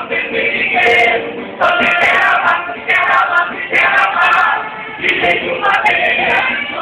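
Live band music with singing, sung in phrases over a dense, loud accompaniment.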